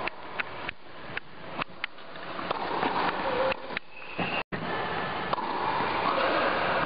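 Tennis ball being struck back and forth in a net-volley rally: a string of sharp pops from racket hits, irregularly spaced a fraction of a second to about a second apart, over a steady hiss. The sound cuts out for an instant about halfway through.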